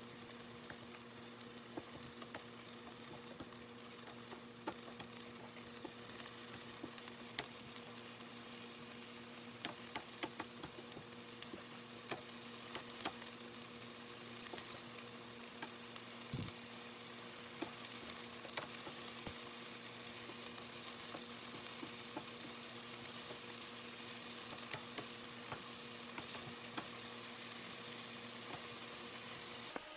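Chopped meat and onions sizzling in a frying pan while a wooden spatula stirs them, with frequent light scrapes and taps of the spatula against the pan. A steady hum runs underneath.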